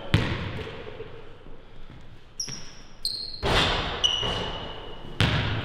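A basketball bouncing on a hardwood gym floor, with a hard bounce just after the start and another near the end. In between come several high sneaker squeaks, one of them long, and a loud rush of noise about midway. Everything echoes in the large hall.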